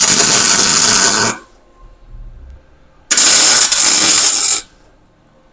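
Arc welding on thick steel: two bursts of loud, steady crackling, each about a second and a half long, with a pause between them.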